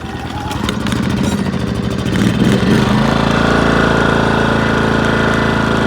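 Craftsman 2200-watt inverter generator's small engine being pull-started: ragged, uneven firing as it catches, then settling into a steady run about three seconds in.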